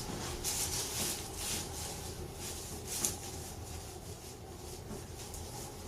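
Soft rustling and rubbing of clothing and table padding as the patient is handled during a manual chiropractic adjustment, busiest in the first second and a half, with one short sharp click about three seconds in.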